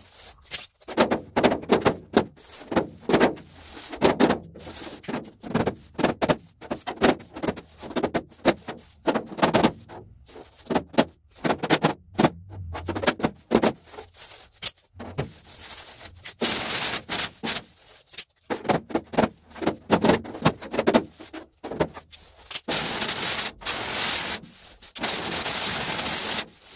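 Small air-powered sanding tool working over the welded seams of a sheet-steel car roof, smoothing them down. It runs in many short bursts, then in longer runs in the second half.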